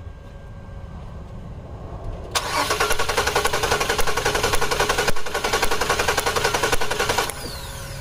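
2008 Nissan Quest's 3.5-litre V6 cranking on the starter for about five seconds with a rapid, even pulsing, then stopping abruptly without catching. It is a crank-no-start: the fuel tank is empty.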